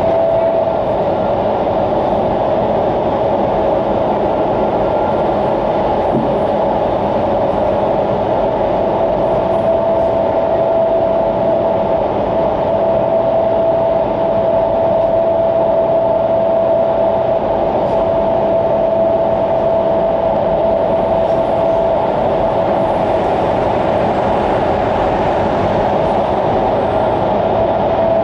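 Indoor skydiving wind tunnel running at flying speed: a loud, steady rush of upward air inside the flight chamber, with a humming tone that swells and fades.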